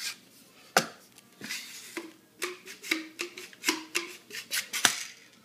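Metal parts of a grease gun clicking and scraping as it is handled while a grease cartridge is fitted and locked in. There are two sharp clicks, one about a second in and a louder one near the end.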